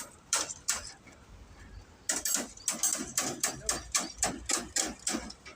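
Rhythmic strokes of hand carpentry work on the building site: a couple of strokes, then from about two seconds in a steady run of about four strokes a second.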